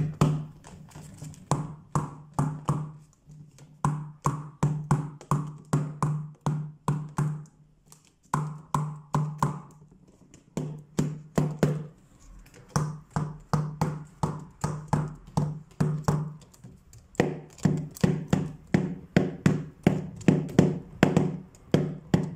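A hand tapping out improvised rhythms on plastic bottles packed with plastic waste: quick hollow taps, several a second, each with a low ring, in phrases broken by short pauses.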